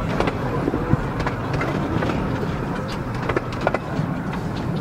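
Miniature railway train running along the track, heard from an open carriage: a steady low rumble with irregular clicks and knocks from the wheels on the rails.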